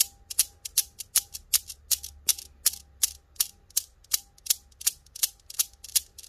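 Chrome steel balls of a Cerropi Newton's cradle clacking against each other as the row swings, sharp strikes about two and a half times a second, some doubled, with a faint ring between them.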